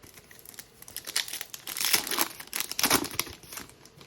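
Foil trading-card pack wrapper crinkling loudly in the hands for about three seconds, in two louder bouts.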